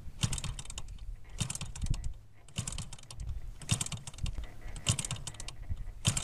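Evolution 33 spark-ignition gas engine of an RC Super Cub being hand-flipped by its propeller, without catching. Each flip gives a short clattering click with a low thump, about once a second, six times.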